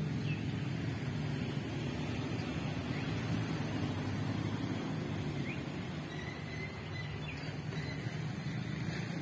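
Steady low engine rumble from passing motor traffic, with a few faint, short high chirps over it.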